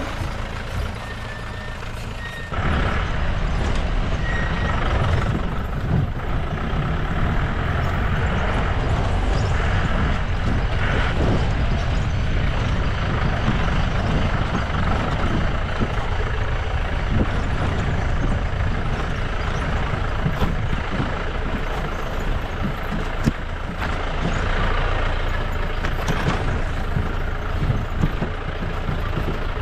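Off-road jeep driving along a rough dirt track, heard from on board: a steady low engine drone with frequent knocks and rattles over the bumps. It gets suddenly louder about two and a half seconds in.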